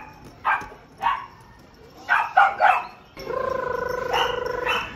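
Beagle puppies yipping: five short, sharp high yaps in the first three seconds. After that comes a steady, high held whine lasting over a second, with two more yaps over it near the end.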